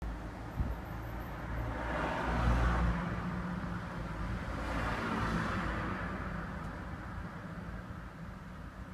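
Range Rover P38's 4.6-litre V8 running with a misfire. Its low rumble swells louder about two seconds in and again around five seconds.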